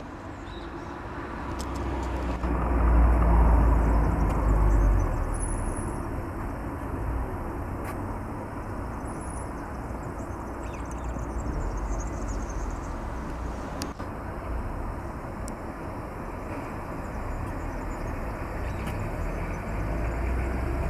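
Street traffic noise: a motor vehicle passes, loudest about three to five seconds in, over a steady background rumble of traffic.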